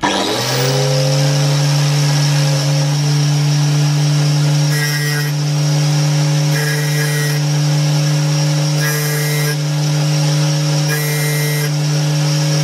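An angle grinder switched on, spinning up to speed within about half a second and then running steadily. From about five seconds in, short grinding rasps come roughly every two seconds as the teeth of a circular saw blade are put one at a time against the spinning disc to sharpen them.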